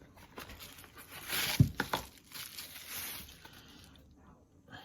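Handling noises: rustling and scraping as a folding knife is picked up and handled, with a sharp click about one and a half seconds in and a second, lighter one just after.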